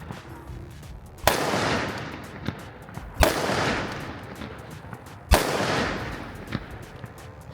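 Three gunshots about two seconds apart, each followed by a long echoing tail, with fainter sharp cracks between them.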